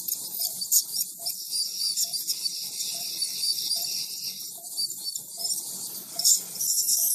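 Ultrasonic dental scaler working on a dog's teeth to strip tartar: a steady high hiss from its water spray, flickering as the vibrating tip meets the teeth.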